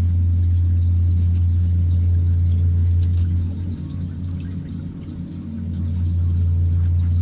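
Steady low hum of a motor aboard a fishing boat. It drops in level for about two seconds a little past the middle, then comes back.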